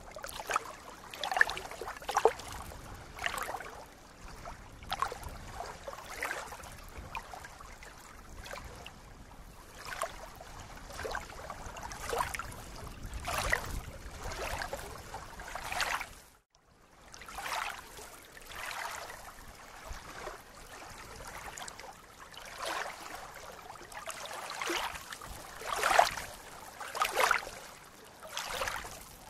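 Small waves lapping at a reedy lake shore, in irregular soft splashes every second or so. The sound cuts out for a moment about halfway through.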